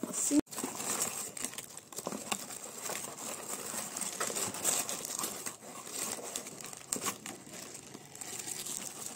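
Honeycomb kraft paper cushioning wrap crinkling and tearing as it is pulled open by hand, a steady run of small crackles.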